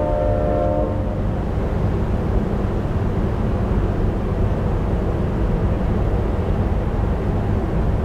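Synthesized recreation of a distant Leslie S4T train horn: its chord cuts off about a second in and dies away in reverb. Steady low rumbling background noise carries on afterwards.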